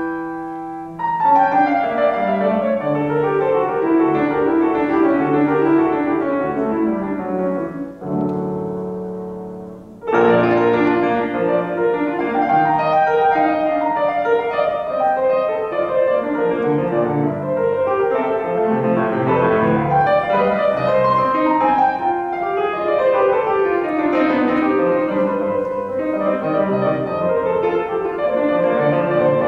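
Yamaha grand piano played solo, classical style: a held chord dies away at the start, rapid running notes follow, a second held chord fades about eight seconds in, and fast runs start again sharply around ten seconds in.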